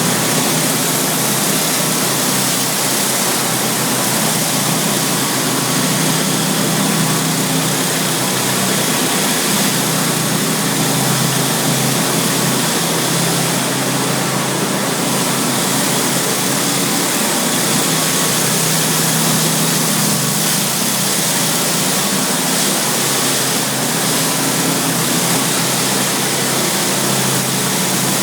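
Pressure washer running steadily: an engine drone under the hiss of high-pressure water spray.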